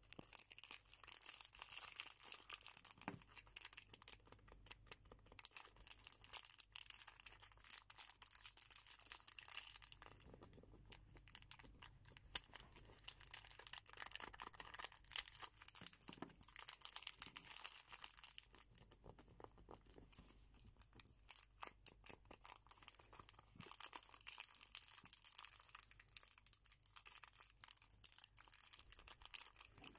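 Plastic KitKat bar wrappers crinkling as fingers squeeze, press and roll them, a dense run of small crackles and rustles.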